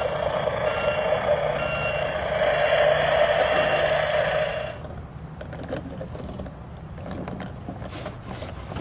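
Battery-powered Dickie Toys garbage truck running its electronic truck sound effects and motorized front loader, then cutting off suddenly about four and a half seconds in. After that come light plastic clicks and knocks as the toy is handled.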